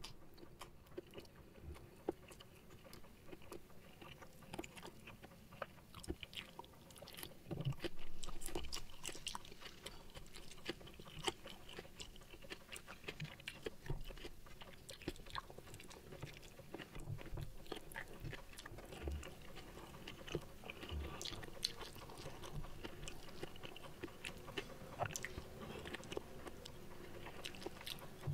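Close-miked chewing and mouth sounds of a man eating a mouthful of rice and side dishes, a steady stream of small clicks and smacks, louder for a moment about eight seconds in.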